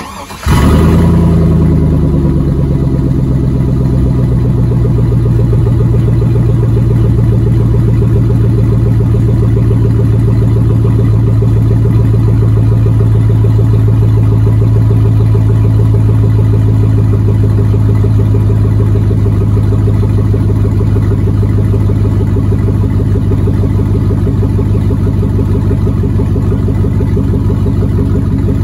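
2003 Chevrolet Silverado 1500 engine cold-starting through a DynoMax Race Bullet mini muffler. It catches suddenly and loudly just after the start, and its fast cold idle drops in pitch over the first two seconds or so. It then idles steadily and loud through the open-sounding exhaust.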